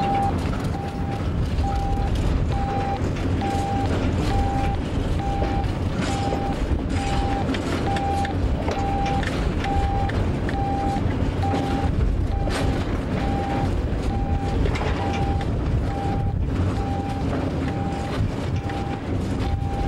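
Short beeps repeating at about one a second from a shunting radio: the continuous sound signal that tells the locomotive driver to keep propelling the train. Under the beeps runs the low rumble and wheel noise of a rolling train of tank wagons.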